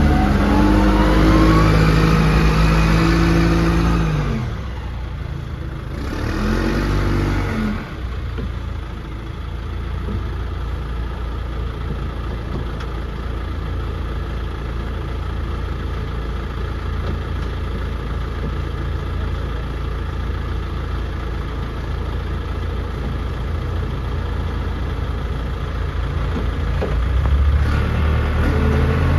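John Deere 310D backhoe's turbo diesel engine worked at high revs with a rising whine for about four seconds. It drops back, revs up briefly once more, then runs steadily at lower speed for most of the time, picking up again near the end.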